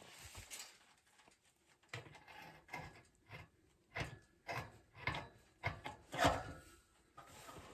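A string of irregular knocks and scrapes from handling work, starting about two seconds in, with the loudest knock about six seconds in.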